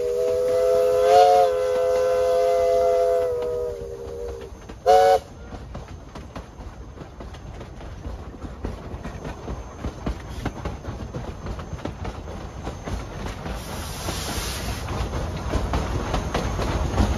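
East Broad Top No. 16's steam chime whistle sounds a long blast of several tones together, swelling briefly about a second in and ending near four seconds, then gives one short toot. After that the train rolls on with the clicking of wheels over rail joints, growing louder near the end.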